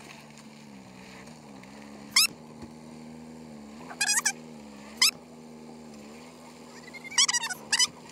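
Toyota Hilux camper's engine running at low revs, its hum dipping and rising a little as the truck creeps and turns. Short, loud, high chirps break in several times, about two, four, five and seven seconds in.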